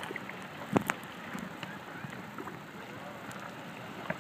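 Small waves lapping and slapping against stand-up paddleboards on calm sea water, with a single sharp knock a little under a second in.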